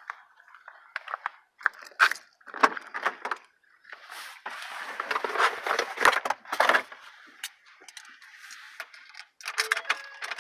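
Keys jangling, with irregular clicks and rustles of handling and a denser stretch of scuffling about halfway through.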